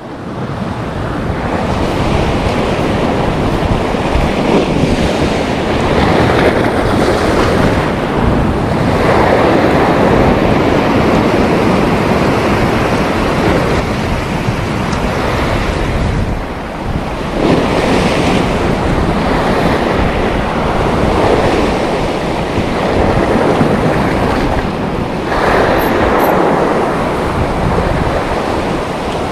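Sea waves washing up on the shore, swelling and falling back every several seconds, with wind buffeting the microphone.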